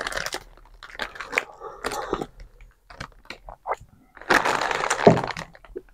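Crinkling and rustling of plastic candy-bar packaging being handled and rummaged through: irregular crackles, with a denser burst of crinkling about four seconds in.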